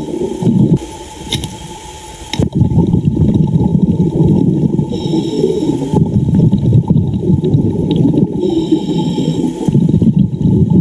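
Muffled underwater noise of water moving and bubbling around a diver, dipping briefly about a second in before a sharp click brings it back.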